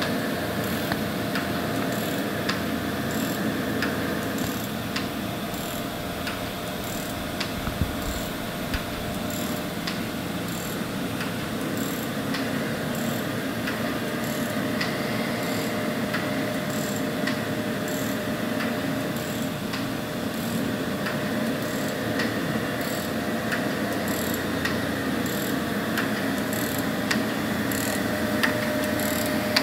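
Jones & Shipman 1400 surface grinder running under power: a steady machine hum with regular light ticking and occasional clicks from its mechanism.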